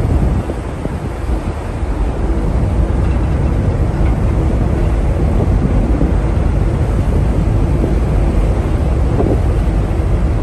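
Wind rushing across the microphone on the open deck of a moving ferry, a steady low rumble that eases briefly near the start.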